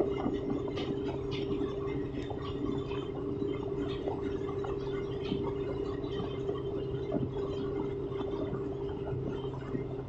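A passenger boat's engine running steadily under way, a constant low drone, with water washing along the hull.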